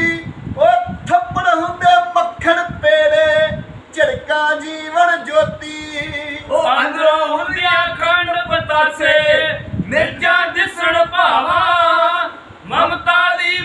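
Unaccompanied male singing of Punjabi kavishari verse, long drawn-out wavering notes with a few short breaths between phrases.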